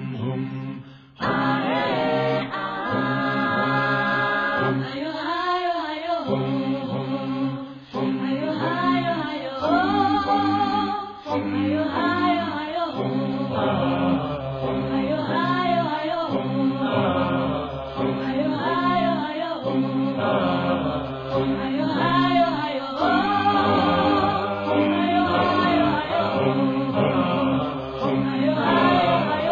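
Background music of group singing, starting about a second in, with a phrase that rises and falls about every three seconds.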